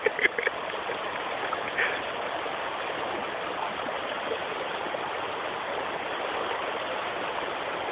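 Steady hiss of flowing water, like a small stream running over the shallow terraces.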